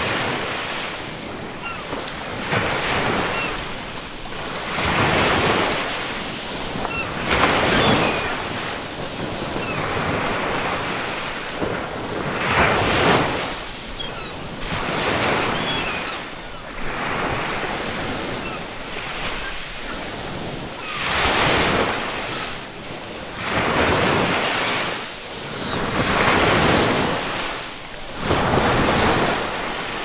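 Ocean surf: waves breaking and washing through in a steady rush that swells and falls back every few seconds.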